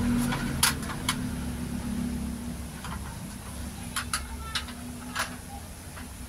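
Metal slats of a roll-up camping tabletop clicking and clattering as it is handled and laid onto the table's folding steel frame: a few sharp clicks in the first second or so, and more around four to five seconds in. A steady low hum runs underneath.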